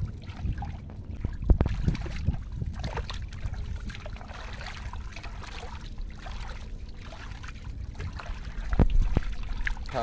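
Hands sloshing and splashing in shallow muddy water while groping through the silt for shrimp and small fish, with small trickles and splashes and a couple of louder thumps, one about a second and a half in and one near the end.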